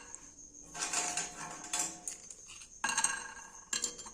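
Dry, uncooked papads being laid out one by one in a microwave: irregular bursts of crisp clattering and rustling as the brittle wafers are handled and set down.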